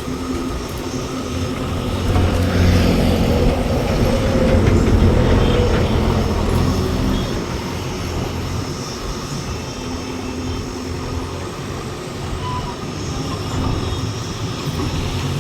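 A heavy diesel vehicle engine running with a low rumble. It grows louder about two seconds in and eases off again after about seven seconds, as if passing close by.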